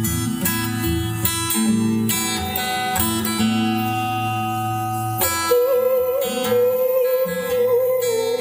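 Acoustic guitar strumming chords in an instrumental passage of a song. About five seconds in, a held, wavering melody line comes in over the guitar.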